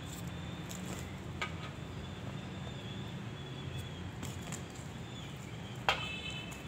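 Steady low background hum with faint high bird chirping, then a single sharp crow caw about six seconds in, the loudest sound.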